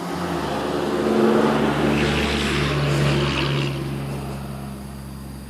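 A motor vehicle drives past, its engine and road noise getting louder to a peak about a second in and then fading away.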